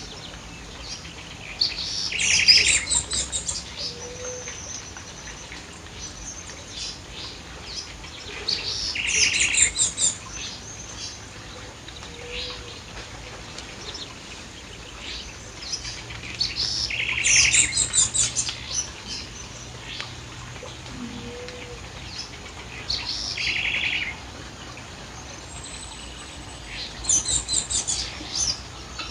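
A songbird singing, repeating a short phrase of rapid high notes every six to eight seconds, each phrase lasting a second or two. Between phrases a faint, short, low call recurs now and then.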